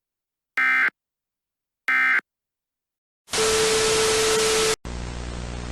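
The last two of three short EAS SAME end-of-message data bursts, each a brief buzzy warble. About three seconds in comes a loud burst of static with a steady tone in it, which cuts off sharply into quieter steady static with a low hum.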